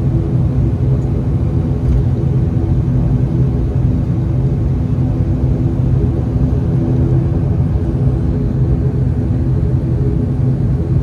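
ATR 42's twin turboprop engines and propellers running steadily, heard from inside the passenger cabin: a low hum with several steady tones and no change in pitch.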